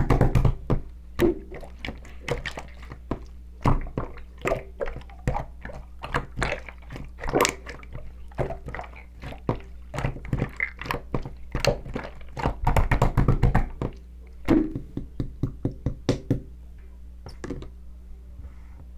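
Irregular run of sharp clicks and knocks, thick in the middle and thinning out near the end, over a steady low hum.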